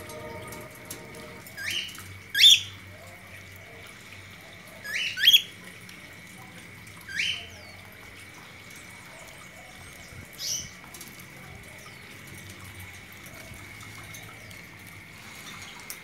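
Cockatiels calling: short rising whistled calls, about six of them, some in quick pairs, the loudest about two and a half and five seconds in.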